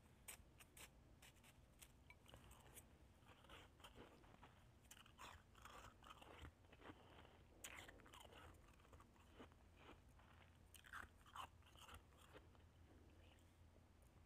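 Faint crunching of shaved ice being chewed: a run of soft crackles and clicks, thickest in the middle and again about eleven seconds in.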